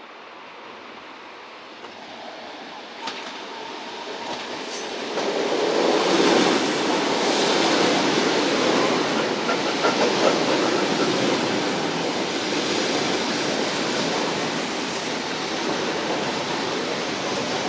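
ЭД4М electric train running, heard from aboard: wheel-on-rail noise that swells sharply about five seconds in and stays loud, with a few sharp clicks before the swell.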